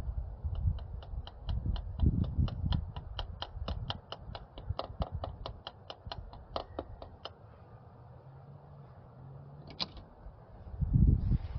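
A rapid, even run of small mechanical clicks, about five a second, lasting some seven seconds over a low handling rumble, with a single sharper click near the end.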